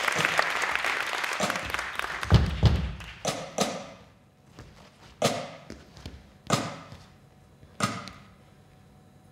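Audience applause dying away, then a few sharp single hits that ring briefly in the hall, the last three evenly spaced about a second and a quarter apart.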